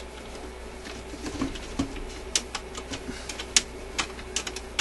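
Sharp metallic clicks and small clatters from an Admiral record changer's control linkage being worked by hand, a dozen or so irregular clicks from about a second in. The On/Off/Reject control is sticking and does not spring back.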